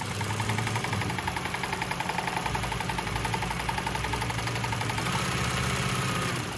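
Consew industrial walking-foot lockstitch sewing machine running steadily, stitching through a thick crocodile-embossed strap with an even, rapid rhythm of needle strokes over the motor's hum. It stops near the end.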